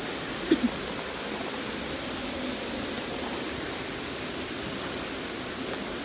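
Steady rush of a flowing creek and its small cascade, with two short sharp sounds about half a second in.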